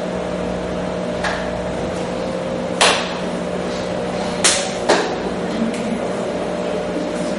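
A few sharp knocks over a steady electrical hum and hiss: a faint one about a second in, a loud one near three seconds in, two more close together a couple of seconds later, then a faint one.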